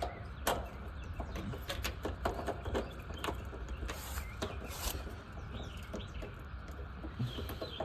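Irregular sharp metallic clicks and taps of a wrench working the bolts that hold the washing machine's cabinet, over a steady low hum.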